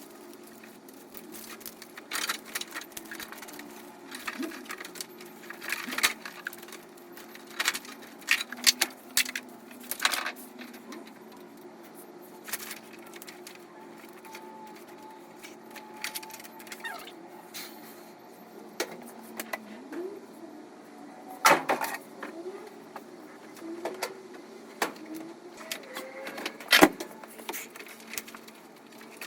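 Irregular clicks, knocks and rattles as an engine wiring harness and its plastic connectors are unclipped and pulled loose, over a steady low hum.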